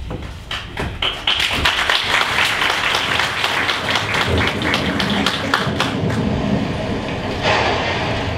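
Audience applauding, a dense patter of claps that starts about a second in and thins out near the end.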